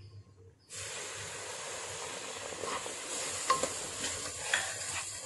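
Milk sizzling in a hot, thick pan of roasted gram flour and sugar, starting suddenly under a second in, while a wooden spatula stirs and scrapes through the bubbling mixture.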